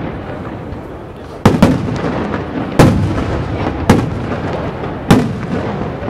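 Professional fireworks display: four heavy aerial shell bursts about a second apart, each with a short rumbling echo, over continuous crackling.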